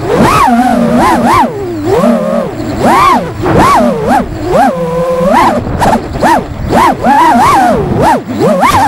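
FPV freestyle quadcopter's brushless motors and propellers, heard from the onboard camera. The whine swoops rapidly up and down in pitch with the throttle, and holds at a steady lower pitch for about a second around the middle.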